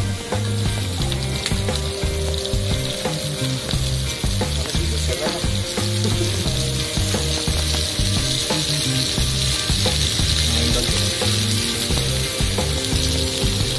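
Mud crabs in coconut-milk sauce sizzling and bubbling in a pan, with background music underneath.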